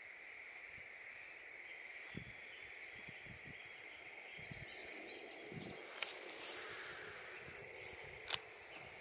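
Outdoor pond-side ambience: a steady high-pitched drone, with light low knocks and two sharp clicks about six and eight seconds in.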